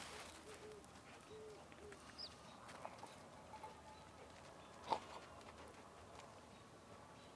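Quiet farmyard morning ambience: a few soft low calls in the first two seconds, a short high bird chirp, scattered faint clicks, and one sharp knock about five seconds in.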